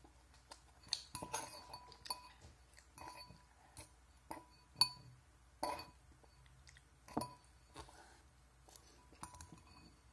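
A utensil clinking against a ceramic noodle bowl: about nine light, irregularly spaced clinks, each with a short ring, the loudest near the middle.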